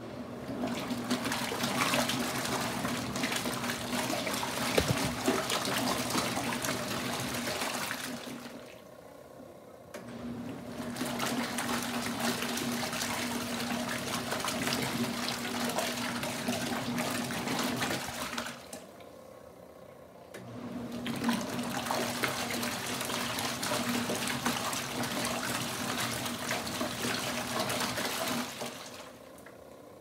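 Kuppet twin-tub portable washing machine's wash tub agitating a load of towels: water churning and swishing over a steady motor hum. It runs in stretches of about eight seconds, each followed by a pause of about two seconds, three times over.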